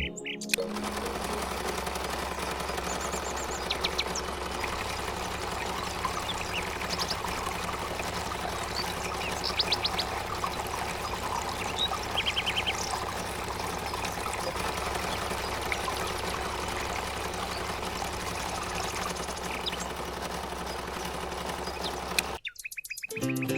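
Short bird chirps, a few at a time, over a steady background of noise and low hum.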